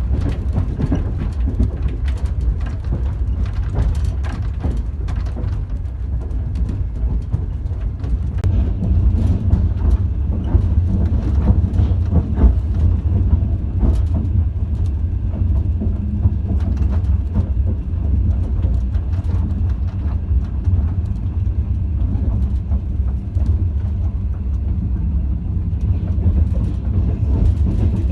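Train running, heard from inside a compartment passenger carriage: a steady low rumble with the clatter of wheels over the rails, with scattered clicks and knocks throughout.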